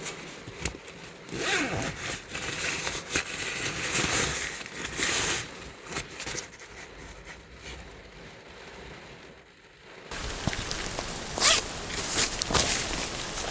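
A zipper being pulled in several short strokes.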